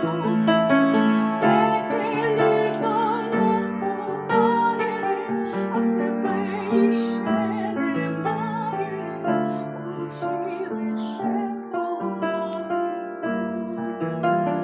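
A woman singing with vibrato over piano accompaniment.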